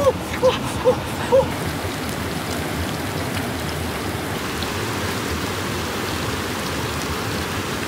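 Whole fish deep-frying in a wok of hot oil, a steady sizzle. A few short chirping calls sound over it in the first second and a half.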